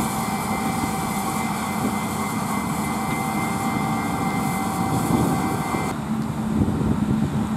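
Self-propelled pea viner running steadily, a constant drone of engine and machinery with a thin high whine over it. About six seconds in the sound cuts abruptly to a lower, duller engine drone from the farm machines.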